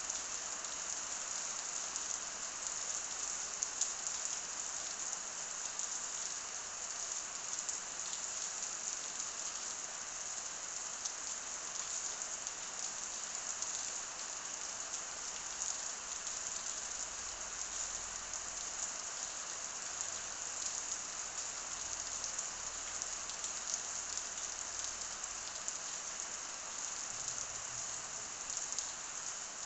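Steady rain falling on a surface, a dense even patter of drops.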